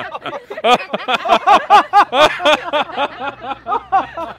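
People laughing heartily: a long run of quick 'ha-ha' pulses, about five a second, loudest in the middle.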